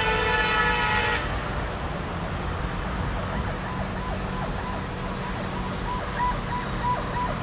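A loud, held vehicle horn blast cuts off about a second in. Steady road traffic rumble follows. From about halfway, a faint high chirp repeats several times a second.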